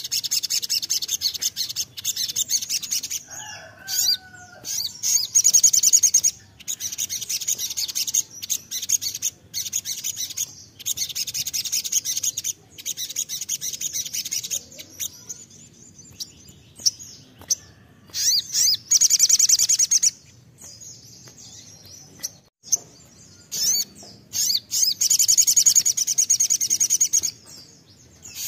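A male olive-backed sunbird ('sogon') singing a fast, high, buzzy trilling song in repeated bursts of a second or more with short breaks between them. It is singing hard and continuously ('nembak', 'gacor'), the kind of song kept birds are played as a lure to set them singing.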